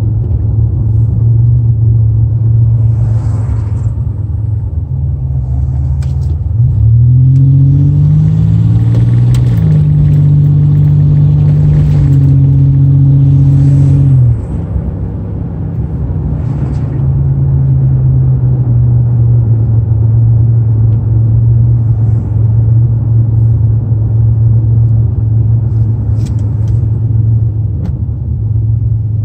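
Car engine and exhaust with a deep, steady rumble while driving. About six and a half seconds in it accelerates, the pitch rising, changes up around nine and a half seconds and holds, then drops back and gets quieter at about fourteen seconds as the throttle eases off.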